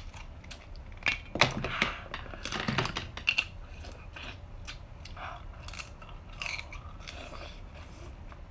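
Close-miked eating sounds: king crab legs being pulled apart and the meat sucked out and chewed, a run of short clicks, crackles and wet mouth sounds. The loudest cracks and crunches come in a cluster about one to three seconds in.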